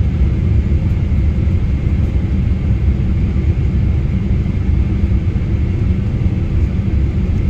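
Boeing 777 cabin noise on approach, heard from inside the passenger cabin: a steady, loud rumble of engines and airflow with a faint steady high whine over it.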